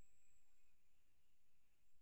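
Near silence: room tone with a faint, steady high-pitched whine.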